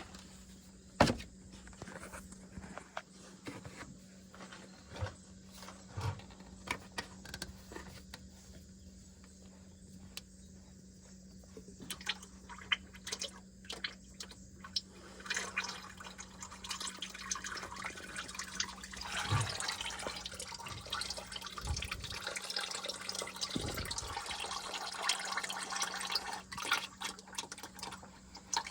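Handling knocks and clicks while a spin-on engine oil filter is loosened by hand, then, from about halfway through, oil starting to run out of the filter housing and spattering steadily into a drain pan. A faint steady hum sits underneath.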